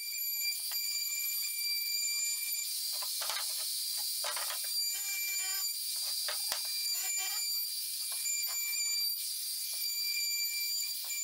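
Compact handheld trim router running at full speed with a steady high-pitched whine, its bit cutting along the edge of a pine frame with an uneven rasping chatter that comes and goes.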